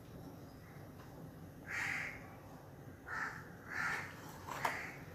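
A crow cawing, three short caws starting about two seconds in, with a sharp click near the end.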